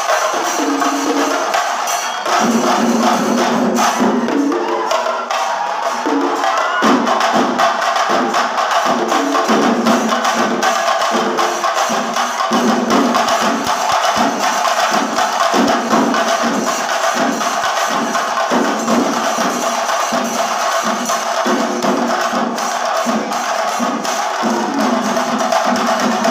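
Chenda melam: a large group of chenda drums beaten with sticks in a dense, driving rhythm, with cymbals clashing along.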